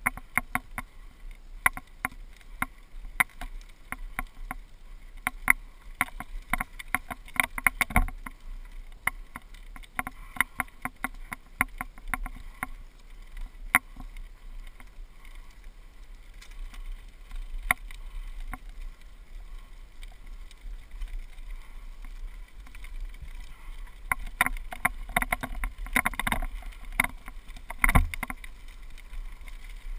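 GoPro camera mount rattling in irregular clicks and knocks as a mountain bike rolls down a gravel path, over a steady low rumble of tyres and wind. The rattling is dense at first, thins out in the middle, and picks up again near the end with a few hard knocks.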